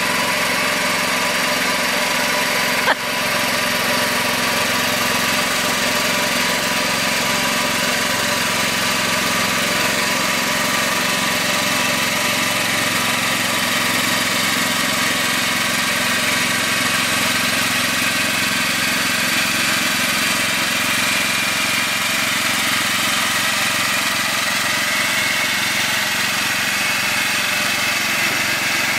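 Small lawn-tractor engine running steadily at an even pitch, with a single sharp click about three seconds in.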